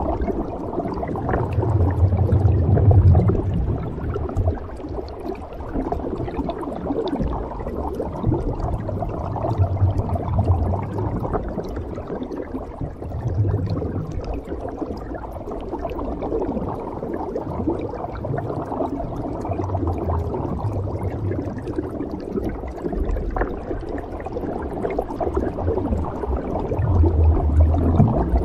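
Scuba diver breathing underwater through a regulator: a burst of exhaled bubbles about every six to seven seconds, five in all, with a steady low gurgling hiss between.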